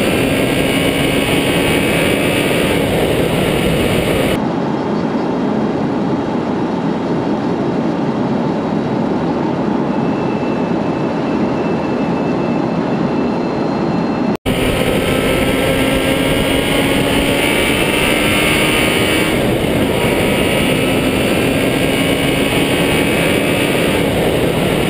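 A vehicle being driven along a road: its engine runs under a loud, steady rush of road and wind noise, the engine note slowly rising in places. The sound drops out for an instant about halfway through.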